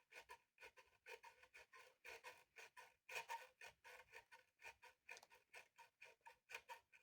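Light, quick scraping strokes on a small engine's metal parts, repeating evenly about three to four times a second.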